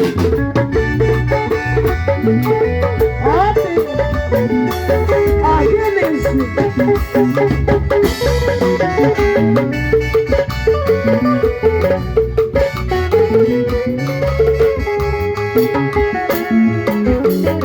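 Band music with drums and percussion keeping a steady beat under melodic instruments.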